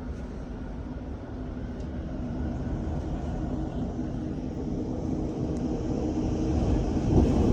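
Strong storm wind blowing against the house, heard from inside as a low, steady roar that grows gradually louder, surging near the end.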